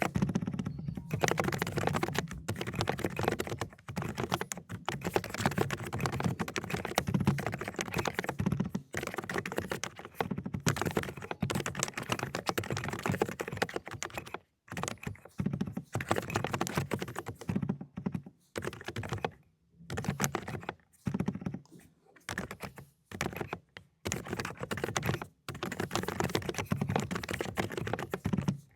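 Fast typing on a mechanical keyboard with low-noise cotton candy switches: a rapid, soft clatter of keystrokes, broken by several short pauses.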